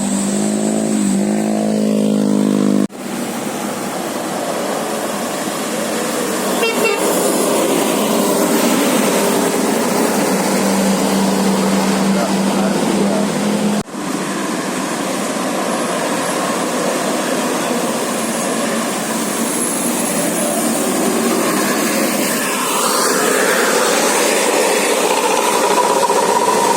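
A Dian Holiday bus's basuri musical air horn plays a short tune of changing notes, then breaks off suddenly. Bus engine and road noise follow, with a steady horn note held for several seconds, and after a second sudden break a higher horn note comes in near the end.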